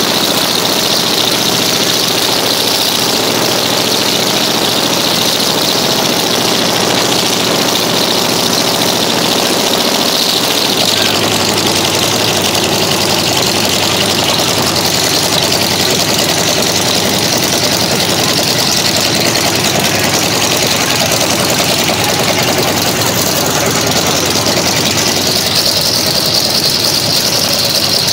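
Jacobs seven-cylinder radial aircraft engine in a 1939 Plymouth truck, running steadily at idle.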